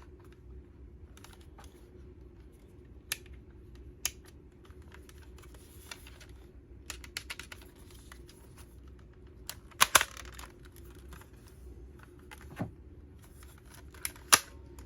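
A plastic toy device and its packaging being handled: scattered light clicks and taps, with a couple of louder plastic knocks about ten seconds in and two more near the end.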